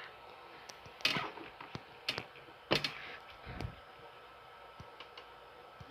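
A handful of scattered sharp clicks and a soft low knock over quiet room tone, the sharpest click a little under three seconds in, with a faint steady high-pitched tone underneath.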